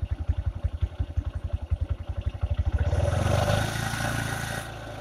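A Bajaj Boxer's single-cylinder four-stroke engine idling with a fast, even putter. About three seconds in the throttle is opened a little and the revs rise, then fall back near the end. The engine is being revved to raise the charging voltage at the battery.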